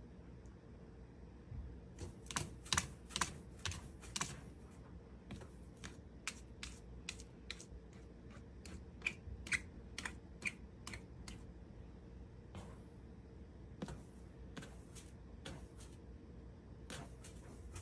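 A Siamese cat digging and scratching in cat litter: a run of quick, gritty scrapes and clicks of the granules starting about two seconds in, thinning out to a few scattered scrapes in the second half.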